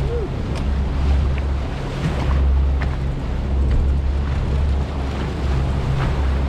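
Outboard motors of a World Cat 325CC catamaran running with a steady low drone as the boat trolls, with wake water rushing behind the stern and wind buffeting the microphone.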